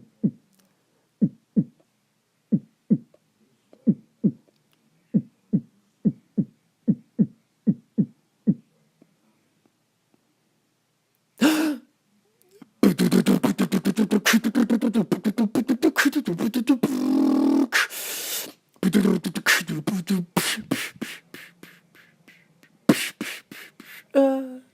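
Beatboxing: a person's mouth making drum-like vocal beats. First comes a run of soft low beats, about two a second. After a pause, a fast, dense run of rapid clicks and buzzing follows that lasts almost to the end.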